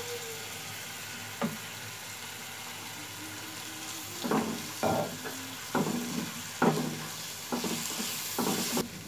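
Onions and freshly added ground spices sizzling steadily in hot oil in a frying pan. From about four seconds in, a steel spatula stirs them in about six scraping strokes against the pan, roughly one a second.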